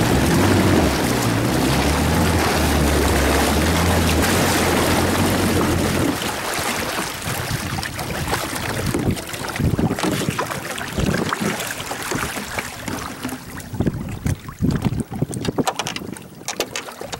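Jet ski engine running with wind buffeting the microphone; about six seconds in the engine note drops away, leaving wind and water noise. A few sharp knocks come near the end as a fishing jug is handled at the side of the craft.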